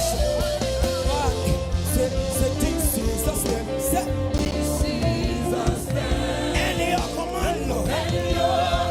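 Gospel singing group performing live with a band: voices singing over a steady drumbeat and bass.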